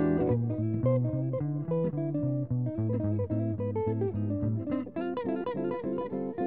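Two seven-string archtop guitars playing a duet, with low bass notes moving under chords and melody. About five seconds in, the low notes stop and a run of quicker high notes takes over.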